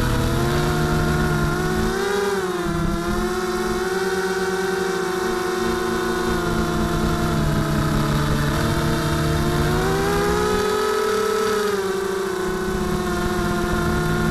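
Mini quadcopter drone's electric motors and propellers buzzing steadily, their pitch rising and falling together as the throttle changes, with a dip about two seconds in and a swell near eleven seconds.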